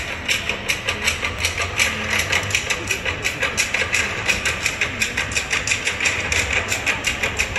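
A fast, even beat of sharp percussive strikes, about five a second, over murmuring crowd voices.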